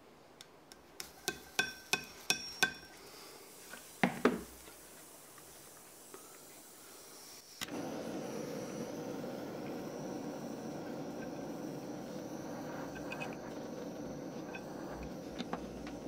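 About five light metal clinks with a ringing tone in quick succession, then two more a little later, as brass parts are handled on a steel plate. About halfway through, a handheld gas torch lights with a pop and burns with a steady hiss.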